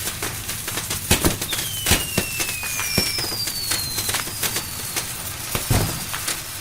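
Fireworks going off: a quick run of sharp bangs and crackling reports. Two whistles fall in pitch, the first about a second and a half in and the second about three seconds in. A deeper boom comes near the end.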